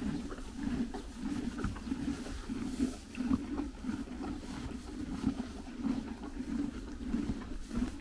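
Horses chewing hay close to the microphone, a steady rhythm of about two to three chews a second, with short crunches and rustles of the dry hay.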